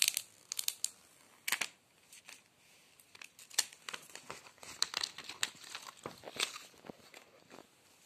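Clear plastic film being peeled and torn off a phone box: sharp crinkling in quick bursts in the first second or so, then scattered lighter crinkles and rustling as the box is handled.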